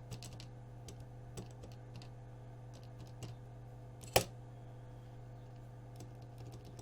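Keys of a 1976 Rockwell 24K II pocket calculator being pressed in an irregular series of small clicks, with one much louder click about four seconds in. The keyboard is somewhat unreliable.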